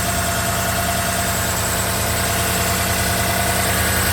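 Chevrolet 5.3-litre V8 idling steadily, with a thin steady tone over the engine hum, running on a freshly replaced water pump, belt and tensioner.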